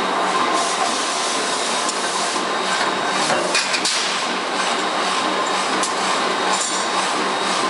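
Forging shop din around a mechanical forging press, a loud steady machinery noise with a faint steady hum. A few sharp metal clanks come about halfway through and again near the end as the hot steel blank is forged and handled in the press dies.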